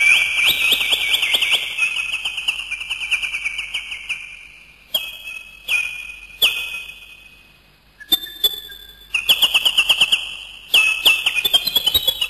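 Bird calls: bursts of rapid, high-pitched chirping trills, with a few sharp single notes in between and a short quieter gap partway through.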